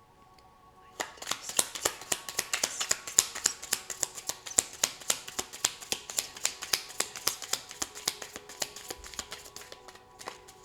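Tarot deck being shuffled by hand: a rapid run of card slaps and clicks, several a second, starting about a second in and easing off near the end.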